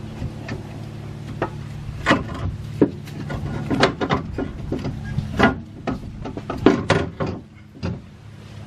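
A replacement alternator knocking and scraping against engine parts as it is worked up into the engine bay by hand: a run of irregular clunks and rubs over a steady low hum.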